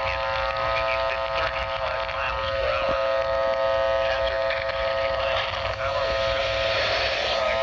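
Emergency Alert System attention signal: the steady two-tone alarm (853 and 960 Hz) sounding continuously, distorted into a buzzy chord of many evenly spaced tones. A noisy hiss lies over it.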